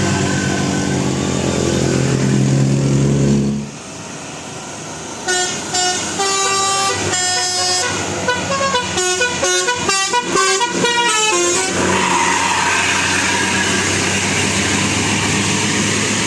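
Indonesian bus telolet 'basuri' musical horn playing a quick tune of short, stepped notes for about six seconds. Before it, a deep held tone cuts off suddenly about three and a half seconds in, and a steady rushing noise follows the tune.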